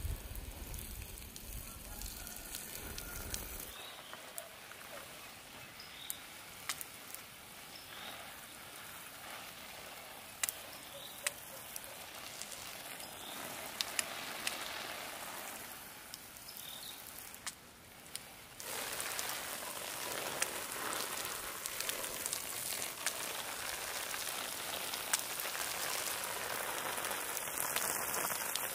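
Rain falling steadily on a surface, with scattered sharp drop ticks; it gets heavier and louder about two-thirds of the way through. A low rumble, like wind on the microphone, fades out about four seconds in.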